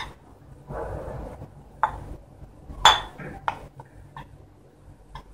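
A spoon scraping and clinking against a bowl while stirring a thick, stiffening dough of flour, sunflower oil and shampoo. There is a short scrape about a second in, then a few sharp clinks, the loudest just under three seconds in.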